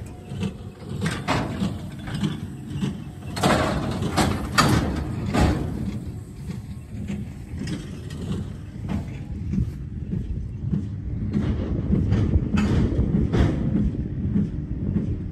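Farm machinery running with a steady low drone, broken by irregular metallic clanks and knocks that are heaviest in the first half.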